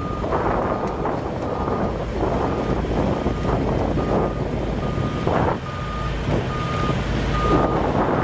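Vehicle reversing alarm beeping steadily, about one beep every 0.8 s, over heavy machinery running.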